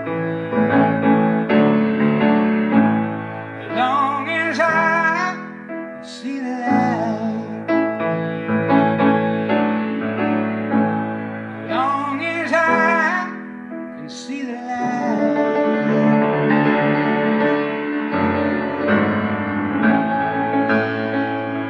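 Music: long held chords from an accompanying instrument, with short sung phrases coming in twice.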